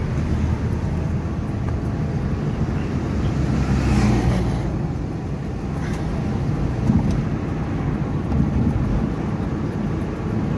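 Car driving on a road, heard from inside the cabin: a steady low rumble of engine and tyre noise, swelling briefly about four seconds in.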